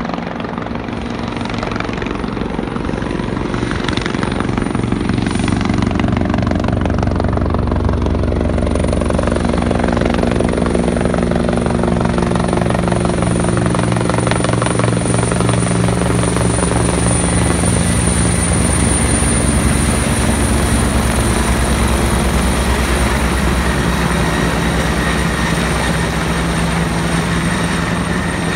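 NYPD helicopter flying low overhead, the rapid beat of its main rotor blades and its engine running steadily. It grows louder over the first few seconds as it comes closer, then holds at that level.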